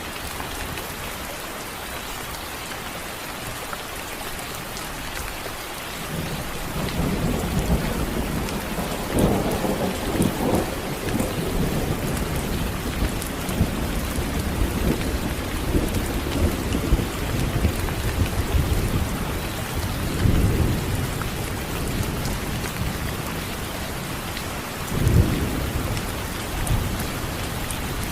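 Steady rain with thunder. A low rolling rumble builds about six seconds in and swells several times, and a sharper, louder thunderclap comes near the end.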